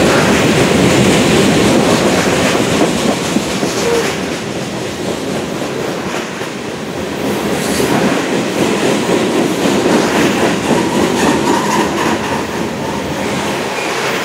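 Covered hopper cars of a Union Pacific grain train rolling steadily past, steel wheels running on the rails with a continuous rumble and a few clacks about eight seconds in.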